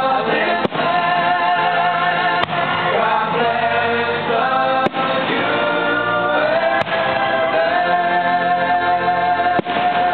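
Choral music: a choir singing sustained chords, with the sound dipping briefly about five times.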